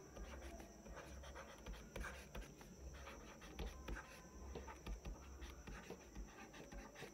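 Faint, irregular ticks and light scratching of handwriting on a touchscreen, over a low steady hum.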